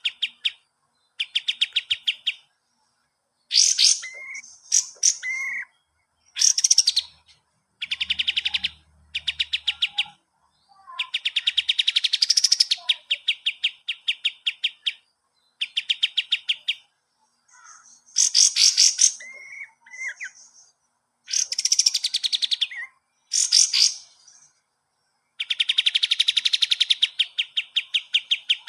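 Kapas tembak bird singing in a loud, busy run: rapid rattling trills of fast repeated notes alternating with short, high, swooping whistles, in phrases of one to two seconds separated by brief pauses.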